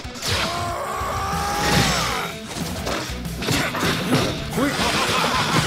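Fight-scene soundtrack of an animated film: background music with sudden hits and crash sound effects.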